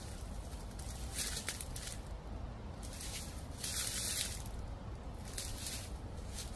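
Slow footsteps crunching through dry fallen leaves, about one crunch every one and a half to two seconds, the heaviest near the middle. A low, steady wind rumble runs underneath.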